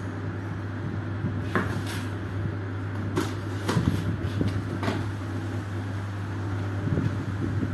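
A few light taps and knocks on cardboard as a kitten paws and pokes its head into a cardboard box tunnel, from about a second and a half in until about five seconds in, over a steady low hum.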